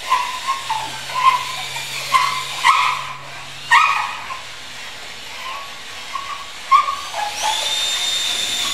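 A dog whimpering in a string of short, high whines, some bending in pitch. About seven seconds in, a Makita electric drill starts running with a steady high whine.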